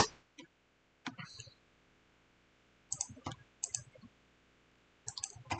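Faint, scattered clicks of a computer mouse and keyboard, a few at a time with pauses between.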